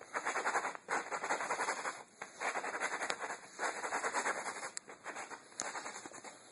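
Shoe sole grinding clay kitty litter into an oil spot on a concrete floor, in about six gritty scraping strokes of roughly a second each.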